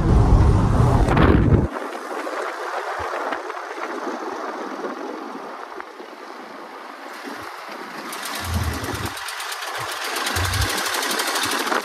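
1989 Dodge half-ton pickup driving, heard from inside the cab: engine and road noise with a low rumble that drops away sharply about two seconds in, leaving a steady hiss. In the last few seconds a fast, even ticking runs over it.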